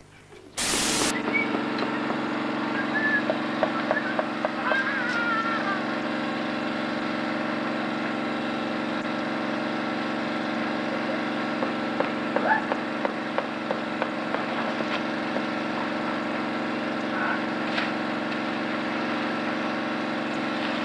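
Drum concrete mixer running steadily, a constant machine hum that starts abruptly about half a second in, with faint voices of workers now and then.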